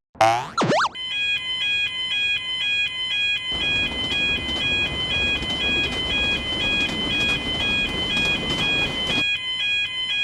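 Electronic level-crossing alarm bell ringing in a steady alternating two-tone pattern, with the rumble of a passing train from about three and a half seconds in until near the end. A brief swooping sound effect opens.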